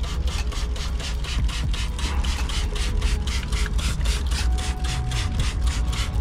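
Brisk hand scrubbing of an aluminum semi-truck wheel, working aluminum brightener acid into the rim in rapid back-and-forth strokes, about five a second, over a steady low rumble.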